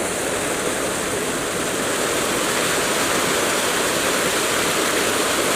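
River water flowing with a steady rushing noise.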